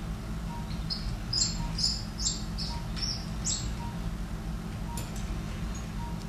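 Operating-room sound: a steady low equipment hum with a faint patient-monitor beep about once a second, and, in the first half, a quick run of about seven short, high chirps.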